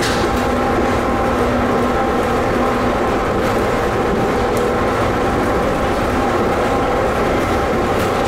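Automated people mover train running between stations, heard from inside the car: a steady rolling rumble with a hum of several steady motor tones.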